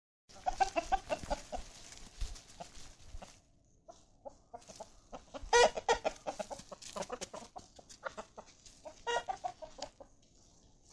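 Chickens clucking: a quick run of short clucks over the first three seconds, then a louder call about halfway through and another shortly before the end.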